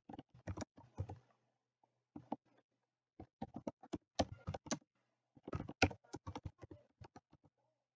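Typing on a computer keyboard: runs of quick keystrokes in four bursts, with short pauses between the words.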